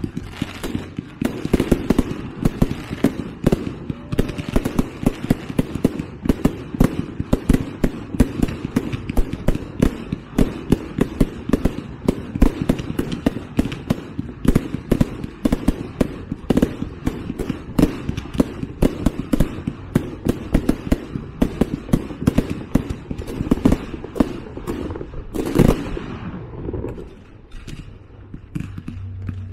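Fireworks display: a rapid, continuous barrage of bangs and crackling bursts, with one big boom near the end before the firing dies down.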